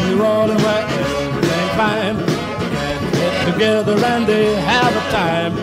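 Background music: an upbeat rock-and-roll song with a steady beat and a melody line.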